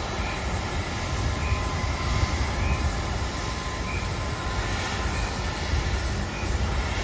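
Steady low rumble with faint high whine tones from a parked Embraer 170 jet airliner at the gate. A short faint blip repeats about every 1.2 seconds.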